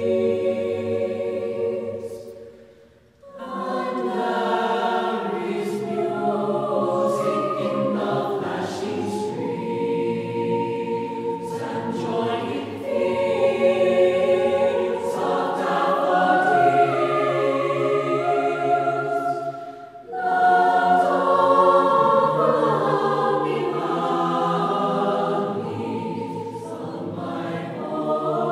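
Choral music: a choir singing slow, sustained harmony, with two short breaks between phrases, about three seconds in and again near twenty seconds.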